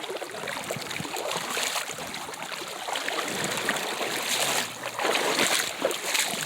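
Boots wading through a shallow, fast creek, water sloshing and splashing with each step over the running stream.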